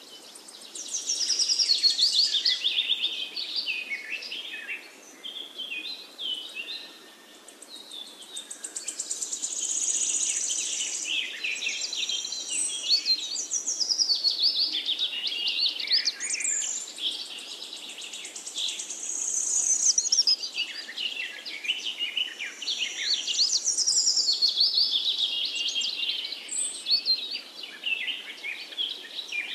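Songbirds chirping and singing, many quick rising and falling calls overlapping, a little quieter for a few seconds about five seconds in.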